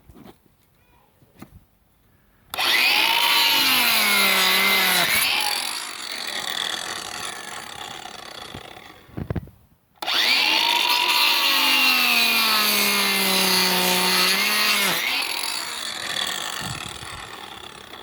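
Cordless angle grinder with a pruning disc cutting through branches, run twice with a short pause between. Each time the motor's whine starts high, drops in pitch as the disc bites into the wood, and then winds down.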